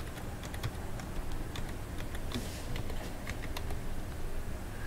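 Typing on a computer keyboard: scattered, irregular keystrokes over a low steady hum.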